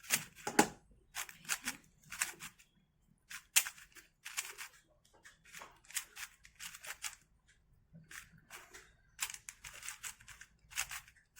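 Plastic clacking of a YJ MGC 4x4 speedcube being turned by hand: irregular runs of quick layer-turn clicks with short pauses between them.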